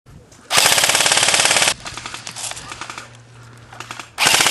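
Airsoft electric gun (AEG) firing on full auto: a burst of rapid shots lasting over a second about half a second in, then a second burst starting near the end.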